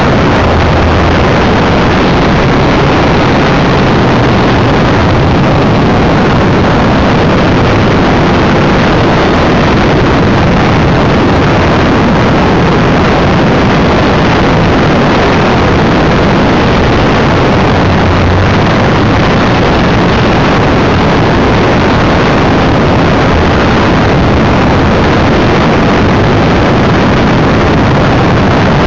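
Multiplex EasyGlider RC motor glider in powered flight, heard from its onboard camera: the electric motor and propeller running steadily under power, a loud unbroken drone mixed with rushing airflow.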